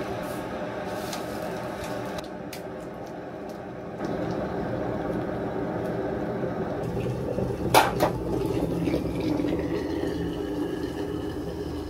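Foil seasoning sachets crinkled as they are torn open and squeezed out over a paper cup of instant noodles, over a steady rushing noise. A sharp click comes about eight seconds in, then hot water is poured from an electric kettle into the cup, its pitch rising as the cup fills.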